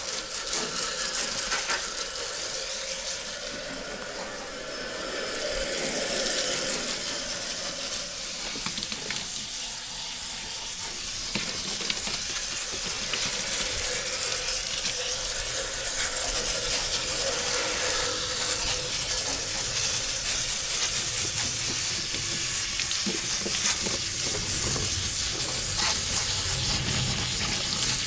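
Steady hissing rush of spraying water or blowing air, with a faint steady hum under it.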